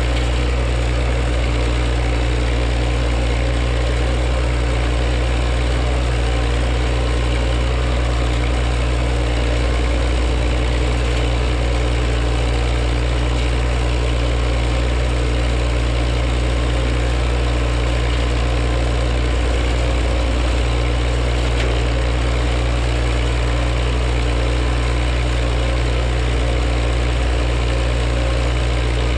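County tractor's diesel engine running steadily at working revs, driving a Twose flail hedge trimmer as it cuts a hedge.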